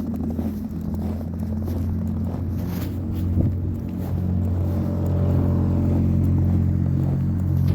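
Car engine running close by, a steady low hum that grows a little louder about five seconds in.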